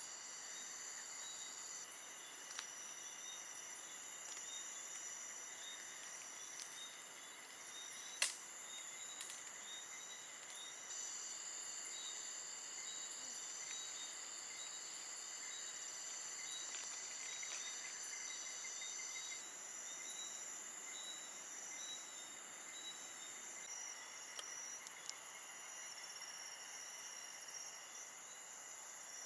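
A chorus of crickets and other insects trilling steadily at several high pitches, with one sharp click about eight seconds in.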